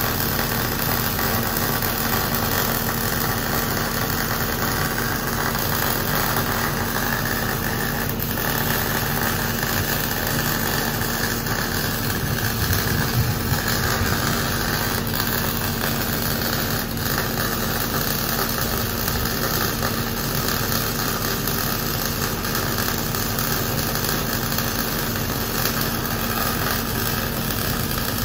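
Electric arc welding at the base of a steel post: a steady hissing arc, with a low even hum underneath.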